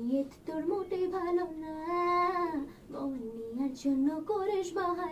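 A young girl singing a melody alone into a studio microphone, in several phrases with a long held note about halfway through.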